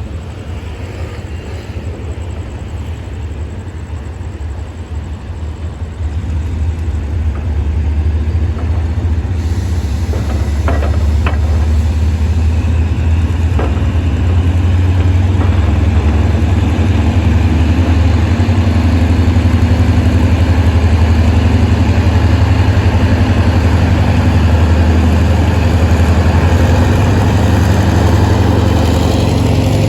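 Diesel engine of Hitachi locomotive 4518 running, a steady low drone that grows louder over the first half and then holds. A few short sharp sounds come around the middle.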